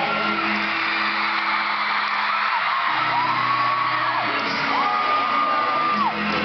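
Live pop-rock band music at an arena concert, with fans screaming over it. Two long, high screams stand out, one about halfway through and another near the end.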